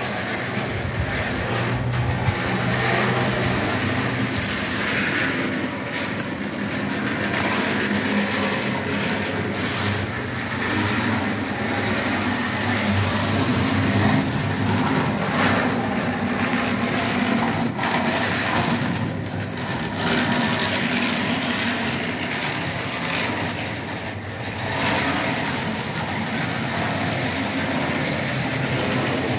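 Model trains running along the layout's track: a steady rolling noise with a thin, steady high whine over it.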